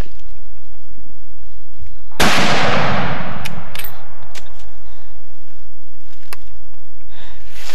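A single bolt-action rifle shot about two seconds in, echoing as it dies away through the woods, followed by a few faint clicks.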